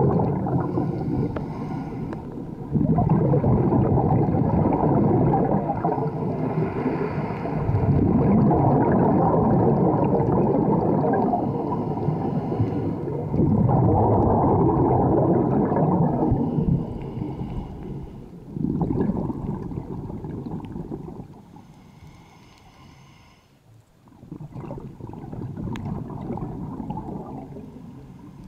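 Scuba diver's exhaled bubbles gurgling out of the regulator underwater, in bursts of a few seconds each with quieter gaps between breaths; the bursts thin out and go quiet for a few seconds past the middle.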